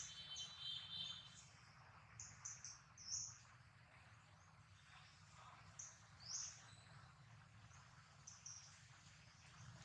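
Faint outdoor background of small birds giving short high chirps at scattered moments, with a brief steady high trill fading out early on, over a faint low hum.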